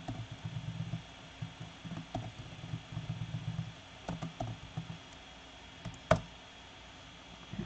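Computer keyboard keys pressed one at a time as a file path is edited: a few scattered clicks, the loudest and sharpest about six seconds in, over a faint uneven low rumble in the first half.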